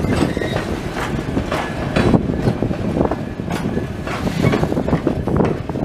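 3 ft narrow-gauge passenger coaches rolling past close by: a steady low rumble of steel wheels on the rails, broken by irregular clicks and clunks.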